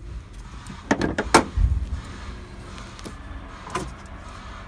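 Sharp clicks and a low clunk from the bonnet catch and bonnet of a Fiat Ducato van being released and opened: two clicks about a second in, a low clunk straight after, and another click later on.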